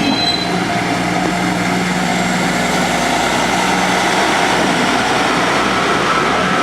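Diesel engines of a KiHa 40/KiHa 48 railcar set running steadily as the train moves slowly past at low speed.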